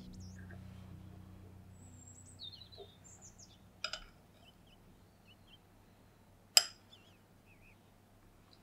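Small birds chirping and twittering in short high calls, over a low drone that fades out in the first few seconds. Two sharp clicks sound, one about four seconds in and a louder one about six and a half seconds in.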